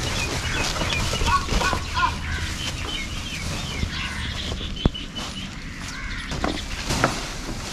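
Small birds chirping in quick, repeated short calls over the rustle of chopped green fodder being gathered up in a cloth sheet, with a couple of sharp knocks, one about five seconds in and one about seven.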